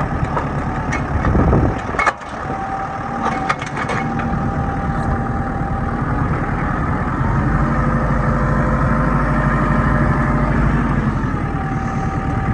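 Kubota tractor's diesel engine running steadily, with a few sharp clicks about two and three and a half seconds in.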